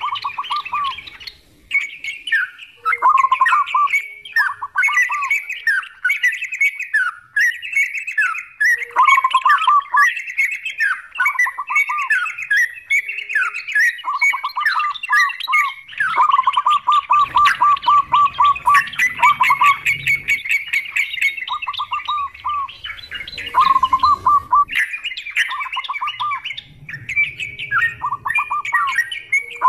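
Yellow-vented bulbuls (trucukan) singing over one another in bubbly, chattering phrases, with quick runs of repeated lower notes between them.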